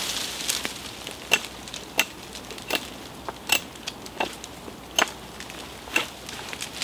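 Small axe chopping the side twigs and stubs off a thin green sapling pole. About eight sharp, separate chops, roughly one every three-quarters of a second.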